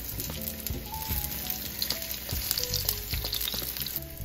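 Filled dough pastries (pöre) sizzling as they pan-fry on low heat, with small clicks as a wooden spatula moves them in the pan. Soft background music of single held notes plays over it.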